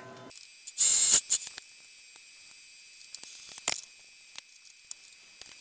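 A short, loud burst of hiss about a second in, a weaker one a little past the middle, and scattered light clicks and ticks.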